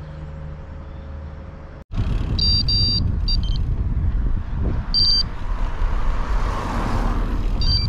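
Wind and road noise from riding a bike, starting abruptly about two seconds in after a brief dropout. Over it come four short, high electronic beeps.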